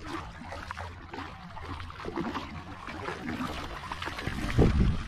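Water sloshing and trickling, with small knocks and a louder splash about four and a half seconds in.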